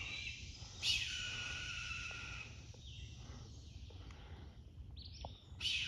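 A hawk calling twice from the treetops, a harsh drawn-out scream about a second in and again near the end, over a faint steady hum of insects.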